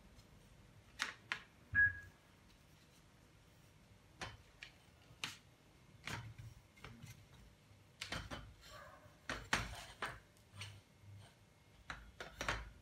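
Scattered clicks and light knocks of a 9-foot tripod light stand being handled: its legs spread and its telescoping sections and lock knobs worked, with a denser run of clicks near the end.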